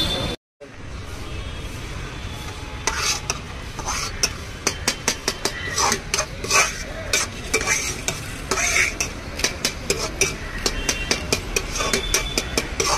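Metal spoon stirring in a steel kadai, scraping and clinking against the pan again and again from about three seconds in, over a steady sizzling hiss of food frying on the gas burner.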